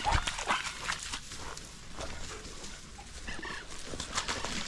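Beagles yelping in short, repeated cries as they work a rabbit's scent, over crackling and rustling close by.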